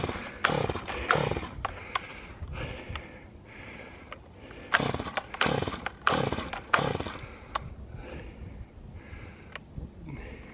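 Old Stihl chainsaw being pull-started with starting fluid: about six pulls of the recoil starter, two near the start and four in quick succession a few seconds later. Each is a short burst of the engine turning over that dies away without the saw catching.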